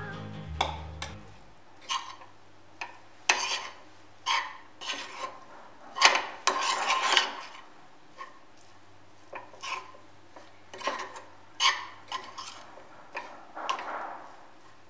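Metal spoon stirring and scraping rice and spinach in a frying pan: irregular clinks and short scrapes against the pan, with a longer run of scraping about six seconds in.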